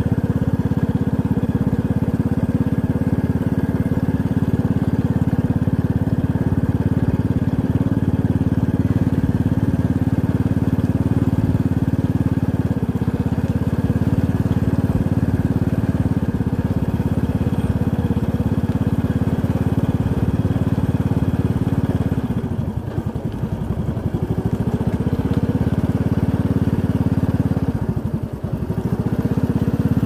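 Motorcycle engine running steadily while riding along. The engine note dips briefly and picks up again twice, about two-thirds of the way through and again near the end.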